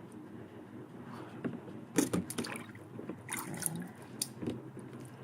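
Wet clicks and knocks of a steel chisel being handled against a water-soaked sharpening stone, with a cluster of sharp ones about two seconds in and a few more scattered after.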